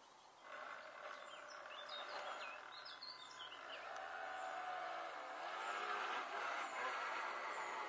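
A radio-controlled model boat's motor runs with a steady whir that grows louder, its pitch rising and falling from about halfway. Birds chirp briefly early in the sound.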